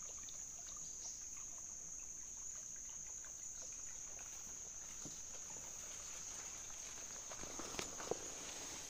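Steady, high-pitched drone of insects in the forest, with a couple of faint knocks near the end.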